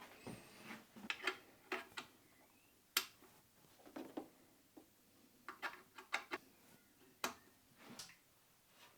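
A scattered series of light clicks and taps, about a dozen, some with a short ring, from hands working the controls and parts of a measuring microscope being tried out after reassembly.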